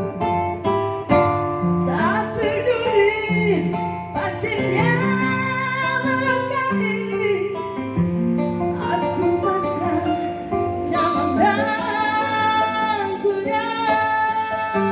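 A song with acoustic guitar and sung vocal lines played back through Yamaha powered PA loudspeakers under test.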